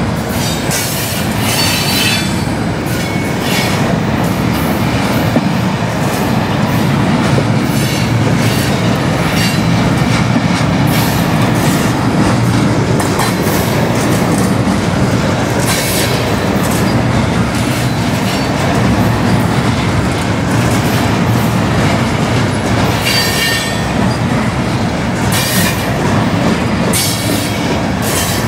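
Freight cars rolling past at close range: a steady, loud rumble of steel wheels on rail, broken now and then by short, high-pitched wheel squeals.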